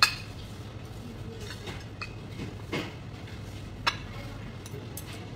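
Metal spoon and fork clinking and scraping against porcelain plates and bowls while eating, with a few sharp clinks: one at the start, one about four seconds in and one at the end.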